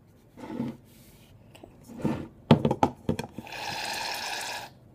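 A few knocks and handling sounds, then an aerosol can of shaving cream spraying in a steady hiss for a little over a second near the end as the foam finally comes out.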